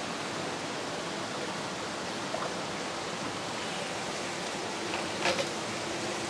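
Steady rushing hiss of circulating aquarium water and filtration across a rack of fish tanks. About five seconds in comes a brief splash as a fish net is lifted out of the water.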